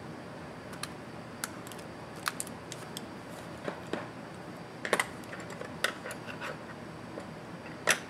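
Irregular small clicks and taps of precision screwdrivers prying and tapping at the plastic and metal parts inside an opened laptop, with a louder click near the end.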